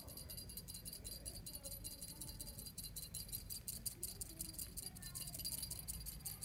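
Cat teaser toy jingling faintly as it is shaken rapidly, many quick jingles a second.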